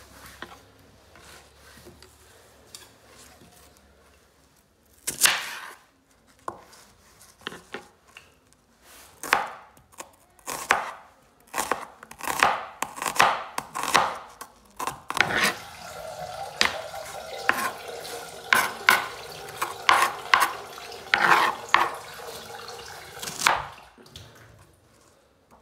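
Knife chopping onion, chillies and tomatoes on a cutting board: irregular sharp strikes, the first about five seconds in, coming thick and fast through the second half.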